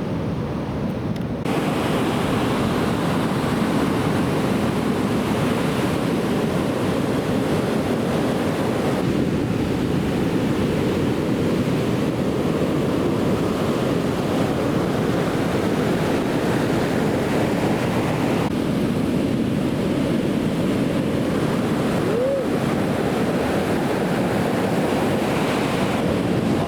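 Ocean surf from a hurricane swell, a steady rush of breaking waves and wash, with wind buffeting the microphone. The sound shifts abruptly about three times.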